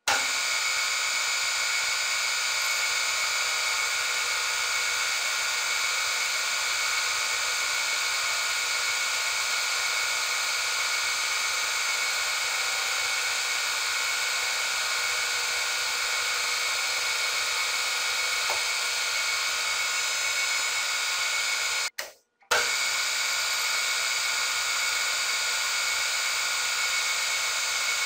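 Nardini Mascote metal lathe running under power while an insert turns a metal pin held in the three-jaw chuck: a steady machine whine made of several constant tones. The sound cuts out for about half a second around 22 seconds in, then resumes unchanged.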